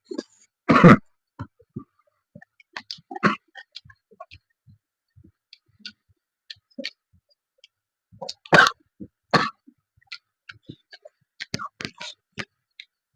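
A person eating close to the microphone: scattered small wet mouth clicks and chewing noises, with a few short louder bursts, one about a second in and two close together near the middle.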